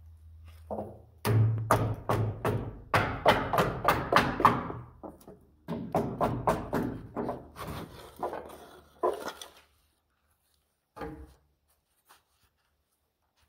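Hammer striking wooden wedges under a timber shoring post: a quick run of sharp wooden knocks, several a second, that stops about two-thirds of the way through, with one more knock a little later.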